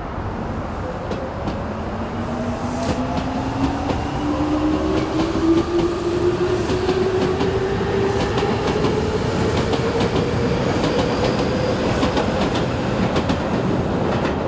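Electric commuter train running on the line, its motor whine rising steadily in pitch as it gathers speed, with wheels clicking over rail joints.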